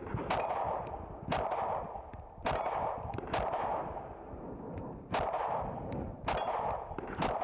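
Compact carry pistol fired in single aimed shots: seven shots about a second apart, unevenly spaced, each followed by a short echo.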